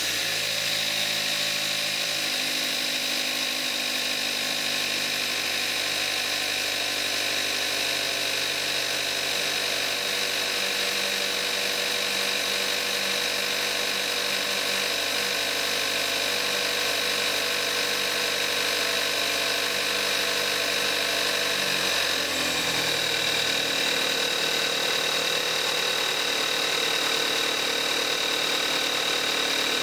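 2014 Kia Forte5's 2.0-litre gasoline direct-injection four-cylinder engine idling fast just after a cold start, on 5W-30 synthetic oil. About 22 seconds in the idle speed drops and settles lower.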